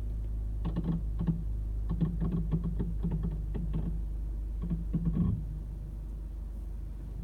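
A rapid, irregular run of clicking and creaking from a 2018 Toyota RAV4 XLE as the brake pedal is slowly released and the car creeps forward, over the steady hum of the idling engine. The clicking stops about five seconds in. The owner takes the noise for a fault in the nearly new car, and the dealer suggested it might be moisture.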